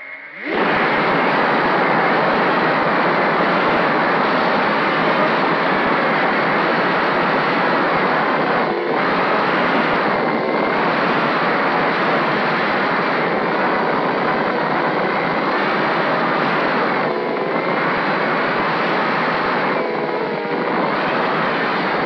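Brushless motors of a 210 FPV mini quad (Emax RS2205 2300 kV) spinning 5-inch props, heard through the onboard camera's mic: spinning up at takeoff, then a loud, steady buzz of motors and prop wash through the flight, with a few brief shifts in pitch as the throttle changes.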